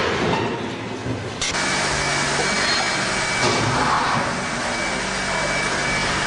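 Steady, fairly loud mechanical noise, like machinery running, that steps up suddenly about a second and a half in, with a thin high tone held through the middle.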